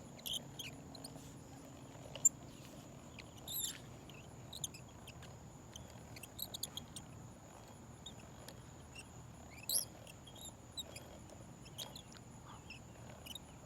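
Quiet outdoor ambience: a steady high-pitched insect drone with scattered faint, short high chirps, and one sharp click about two seconds in.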